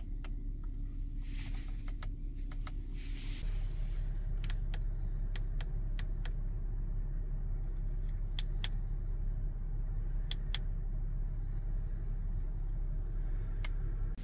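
2017 Audi Q7 3.0T with its 3.0-litre V6 on the move: steady low engine and road noise that gets louder about three seconds in, with scattered light clicks and rattles.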